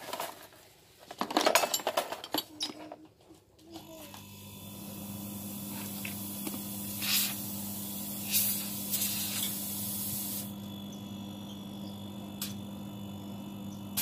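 Clatter of tools and copper tubing being handled. About four seconds in, a refrigerator compressor starts with a steady electric hum, and air hisses from the open pipework for several seconds until the hiss stops while the compressor keeps running. The air flow is a check that the capillary tube and filter are not clogged.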